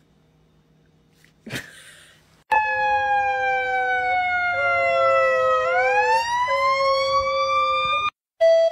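Near quiet at first, then about two and a half seconds in an emergency vehicle siren starts abruptly in a slow wail. Its pitch falls slowly, then turns and rises, over a second steady tone that breaks off briefly a few times. It cuts off suddenly near the end.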